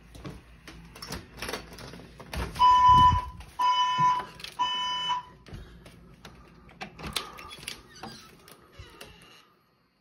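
Fire alarm evacuation tone sounding three pulses about a second apart, a steady high beep with overtones, in the temporal-three pattern that calls for evacuation. Soft knocks and clicks come before and after it.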